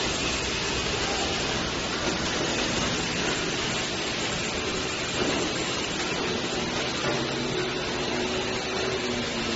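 Bottle-filling-line machinery running, with clear plastic bottles fed through a bottle unscrambler: a steady rushing machine noise with a faint low hum underneath.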